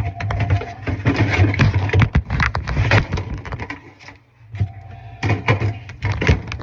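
Hands handling plastic and metal refrigerator parts while fitting an evaporator fan motor: a string of clicks, knocks and rustling, over a steady low hum.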